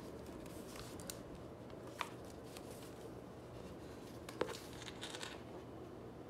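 Notebooks being handled by hand: a couple of light clicks and knocks, about two seconds in and again past the middle, and a short rustle of paper and covers as a hardcover notebook is pulled from a stack.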